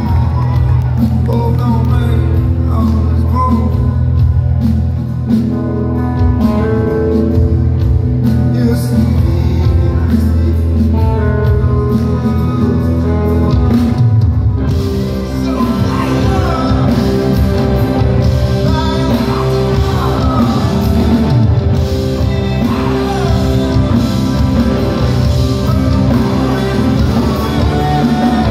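Rock band playing live in a large hall: electric guitars, bass and drums with a male lead voice singing. About halfway through, the heavy sustained low end gives way to a busier section where the singing comes through more clearly.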